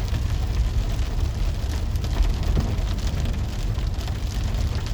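Rain pattering on a van's windshield and roof, heard from inside the cab over the steady low rumble of the van driving.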